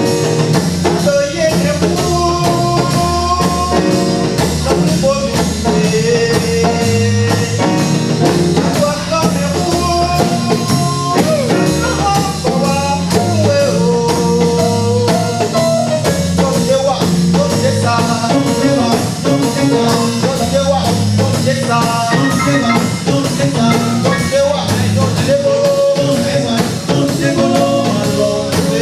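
Music with a steady drum beat, guitar and a singing voice.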